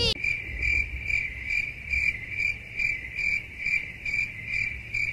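A cricket chirping steadily, one high chirp repeated evenly about three times a second.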